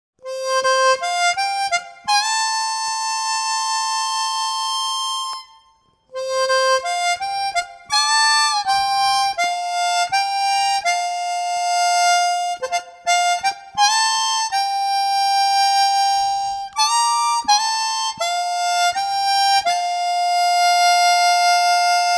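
Background music: a single melody line of held, reedy notes. It breaks off briefly about six seconds in, then resumes.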